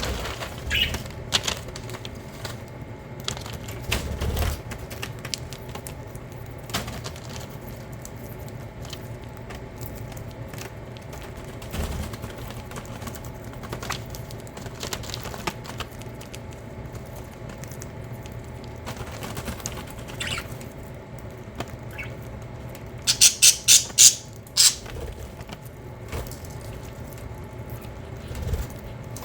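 Budgerigars: scattered soft clicks and rustles with a few short chirps, then, later on, a quick run of five or six sharp, high chirps in a row.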